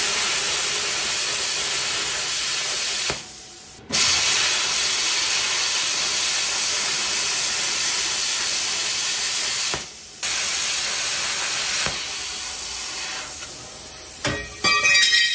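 Handheld plasma cutter cutting 1/8-inch steel sheet: a loud, steady hiss of arc and air, broken off twice for a moment. It then settles to a quieter hiss, and a few short metallic clanks follow near the end.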